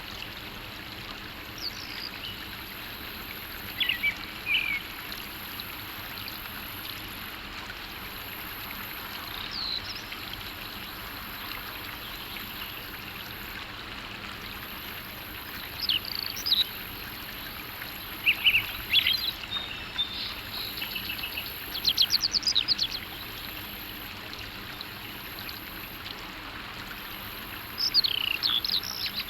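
Wild birds chirping and calling in short scattered phrases, busiest in the second half, with a fast trill a little past the middle, over a steady background rush of flowing water.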